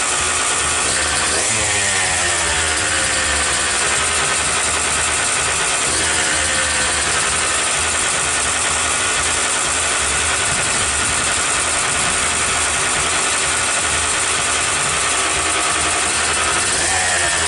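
Kawasaki KX125 dirt bike's two-stroke single-cylinder engine running loudly, revved about a second and a half in and again near the end, the pitch falling back after each blip.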